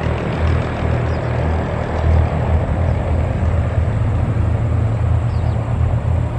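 Steady low outdoor rumble with an even hiss over it and no distinct event.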